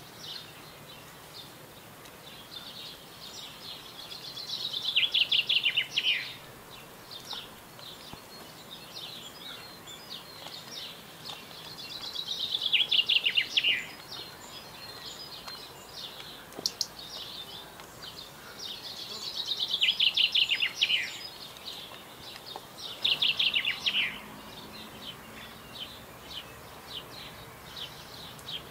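A songbird singing: several short phrases a few seconds apart, each a quick run of high notes that drops in pitch at the end.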